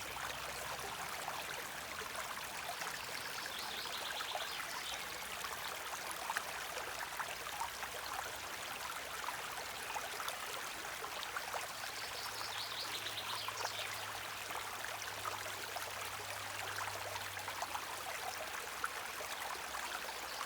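A small stream flowing, with steady rushing and trickling water and small splashes.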